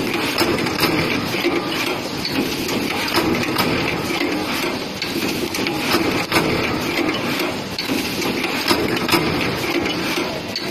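Automatic double-wire punching and binding machine running, a steady mechanical clatter of many quick, repeated knocks as it moves sheets through.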